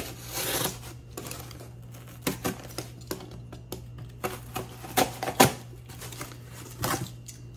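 Utility knife cutting through corrugated cardboard: a scraping stretch at the start, then scattered clicks and snaps as the blade works along the slot, the sharpest about five seconds in.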